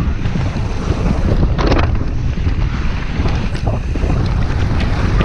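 Heavy wind buffeting on a chest-mounted camera microphone as a downhill mountain bike descends fast over a dry dirt track, with tyre and bike rattle underneath. A brief louder burst of noise comes about one and a half seconds in.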